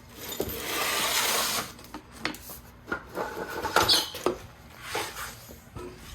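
A rear strut assembly being handled and fitted back into the car. A scraping rush, then a series of light metal knocks and clicks with a brief squeaky scrape.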